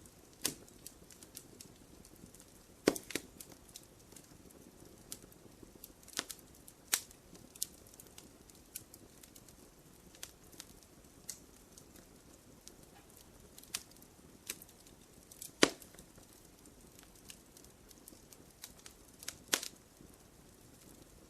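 Wood fire crackling in a fireplace: irregular sharp pops and snaps over a soft steady hiss, with a few louder pops about three seconds in, near the middle and near the end.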